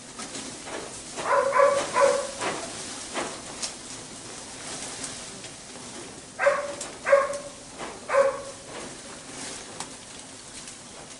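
A dog barking: three short barks about a second and a half in, then three more about six and a half seconds in, with faint clicks and rustles in between.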